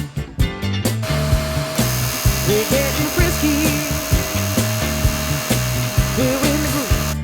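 Background music with a steady bass line and singing, and a loud steady machine hiss with a hum that starts suddenly about a second in and cuts off abruptly near the end.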